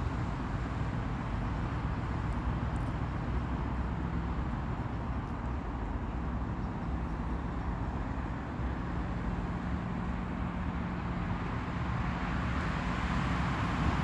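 Steady low hum of an idling engine, with the even noise of road traffic around it.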